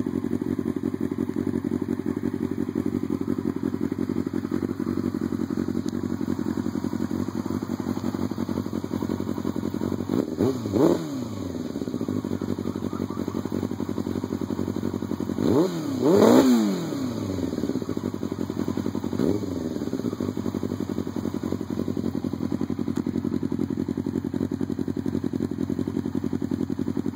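2002 Yamaha R6's inline-four engine idling through an M4 slip-on exhaust, with a steady note broken by three quick throttle blips. The revs rise and fall back to idle, the middle blip the longest and loudest, the last one small.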